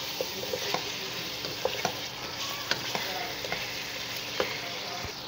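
Beef pieces sizzling in oil in a nonstick pan as a spatula stirs them, a steady frying sizzle broken by scattered clicks and scrapes of the spatula against the pan.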